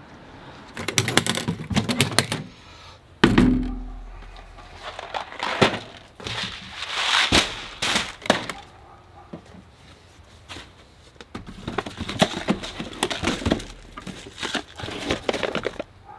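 Gear and boxed supplies being handled and packed into an aluminium storage case: clusters of clicks and knocks with rustling packaging, and one heavy thump about three seconds in.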